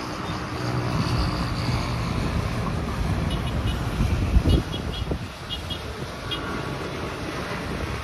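Street traffic with a car passing close by. A gust of wind buffets the microphone about halfway through, the loudest moment.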